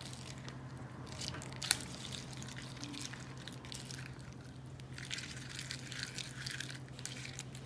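Metal spoon stirring foam beads through thick clear shampoo slime in a small plastic cup: soft squishing with scattered light clicks, and one sharper click about two seconds in.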